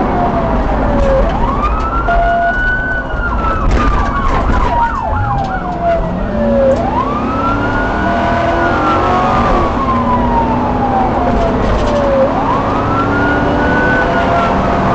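Police car siren on a wail, each cycle rising quickly and then falling slowly over about five seconds, with a brief fast warble about four seconds in, over steady vehicle engine and road rumble.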